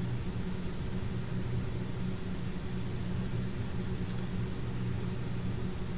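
Steady low electrical or fan-like hum with a faint hiss, with a few faint clicks scattered through it; no distinct event.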